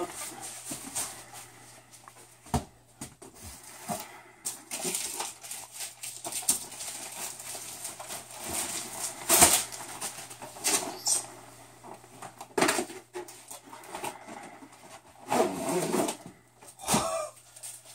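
Cardboard box being opened by hand: tape slit, flaps and cardboard pulled apart, packing rustling, with scattered knocks and a sharp crack about halfway through. A short whining, voice-like sound near the end.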